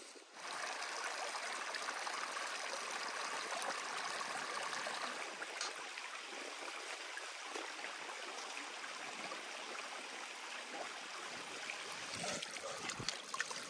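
Shallow mountain stream running over stones, a steady rush of water. Near the end, water poured from a metal jug splashes over a fish being rinsed on a rock.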